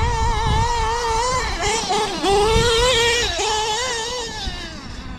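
Novarossi .28 two-stroke nitro engine in a 1/8-scale Losi 8ight XT truggy running at high revs, its high whine wavering and dipping with the throttle, then growing fainter near the end as the truck runs off.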